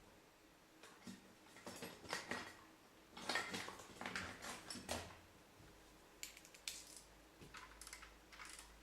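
Hand tools clicking and clinking against the metal of a removed car alternator while its small nuts are being undone, with a busy run of knocks in the first half and a few lighter ticks later.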